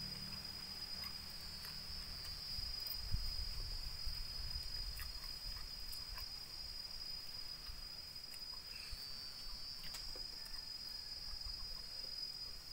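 Steady high-pitched insect chirring throughout, with scattered light clicks of hands working rice on a plate and a single knock about three seconds in.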